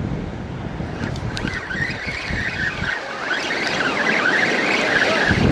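Spinning reel being cranked to reel in a fish, its gears whirring with a wavering tone from about a second in. Wind buffets the microphone, with surf behind.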